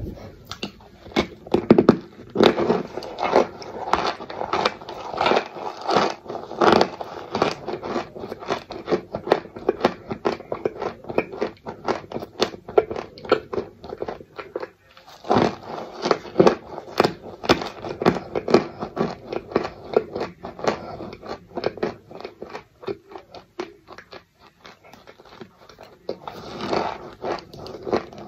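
Clumps of cornstarch crunching and crackling as they are bitten and chewed close to the microphone, a dense run of short crisp crunches with a couple of brief lulls.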